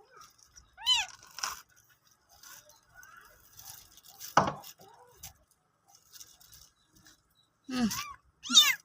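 Newborn kittens mewing in short high-pitched cries, a couple about a second in and several more near the end, with faint rustling between.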